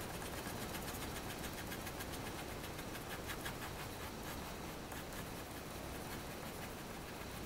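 Graphite pencil shading on drawing paper: rapid back-and-forth scratchy strokes, busiest in the first half, over a low steady hum.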